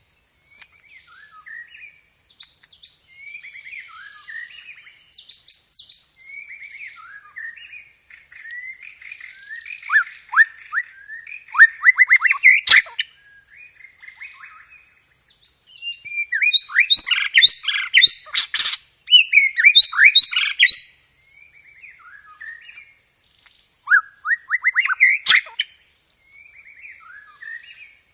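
White-rumped shama (murai batu) singing a varied song of whistled and chattering phrases; quieter twittering gives way three times to loud bursts of rapid, falling rolled notes, the longest a few seconds past the middle. A steady thin high tone runs behind the song.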